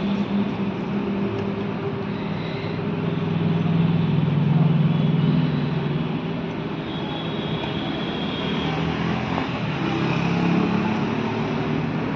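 A motor's steady low drone that swells about four to five seconds in and then eases.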